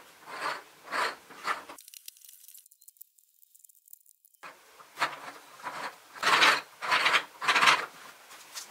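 Wooden toy gears and jigsaw-edged puzzle tiles scraping against each other and the tabletop as they are handled and turned, in short rasping strokes: three early on, a pause of about two seconds, then five louder ones.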